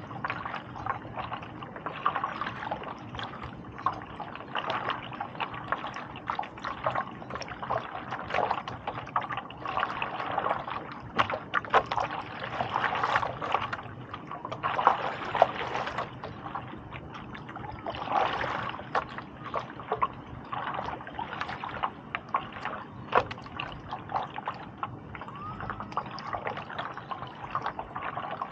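Stand-up paddle blade dipping and pulling through the water, with irregular splashing and water trickling off the blade between strokes.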